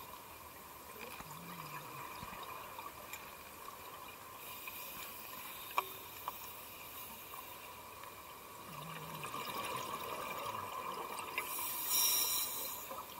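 Scuba divers' exhaled breath heard underwater: regulator bubbles gurgling and hissing, swelling now and then, with a loud burst of bubbles near the end. Two sharp clicks a little past the middle.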